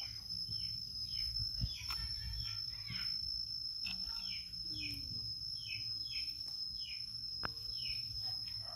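Outdoor ambience: a steady high-pitched insect drone, with a bird calling over it in short falling chirps, often in pairs, repeating about every second, and a low rumble beneath.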